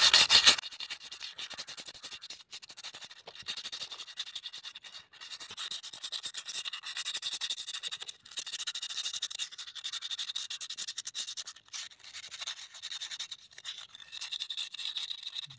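Sandpaper rubbed by hand around the inside of a Honda Dio scooter's rear brake drum, scouring off rust: a dry scratching in runs of strokes with short pauses between them. The rust in the drum is what makes the brakes squeal.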